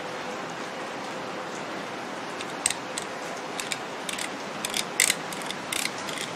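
GM truck (GMT-800) rotary blower-speed switch, freshly greased, being clicked by hand through its detent positions to check its action. A run of sharp, irregular clicks starts about two and a half seconds in, over a steady hiss.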